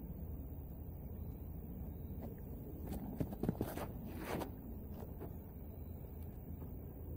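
Shoes shuffling and scraping on a concrete tee pad during a disc golf run-up and throw: a short cluster of scuffing steps about three to four and a half seconds in, over a steady low background rumble.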